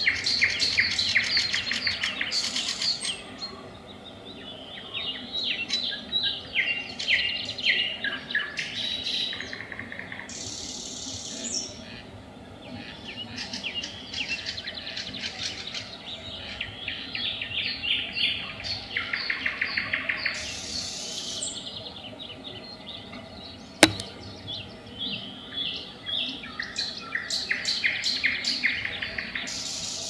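Nightingale singing: phrases of rapid repeated notes and trills, separated by short pauses. A single sharp click comes a little over two-thirds of the way in.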